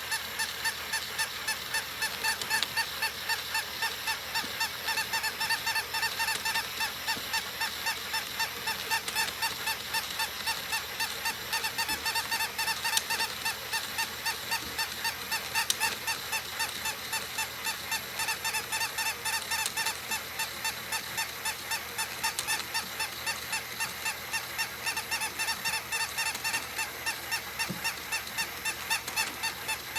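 Electronic toy puppy sounding a rapid, mechanically even train of short nasal honking yaps, about three a second, without a break.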